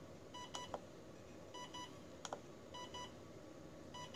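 Faint short double beeps from a Spektrum radio transmitter, repeating about every 1.2 seconds, four times in all, with a few sharp clicks in between as the forward-programming menu is scrolled.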